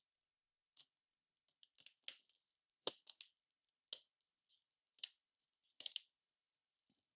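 Faint, sharp clicks and light scrapes from hands handling the opened laptop's plastic and small parts, roughly one a second.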